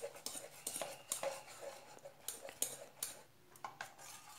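Wire whisk beating a thin gram-flour batter in a stainless steel bowl, its wires clinking against the metal two or three times a second, easing off after about three seconds.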